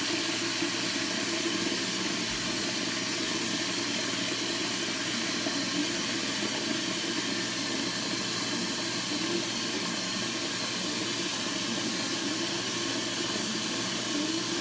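Tap water running steadily onto hair that is being washed with shampoo.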